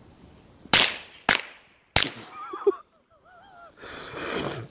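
Firecracker exploding in the snow: three sharp bangs in just over a second, the first the loudest.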